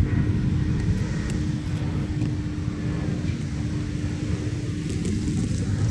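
Slow-moving passenger train giving a steady low rumble with a constant hum.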